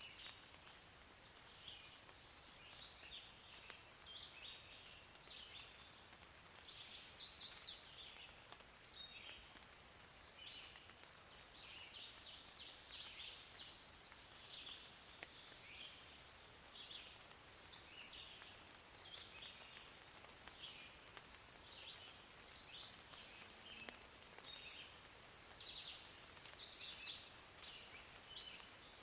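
Many small birds chirping and singing over a faint, steady hiss of rain, with two louder, higher bird calls, one about a quarter of the way in and one near the end.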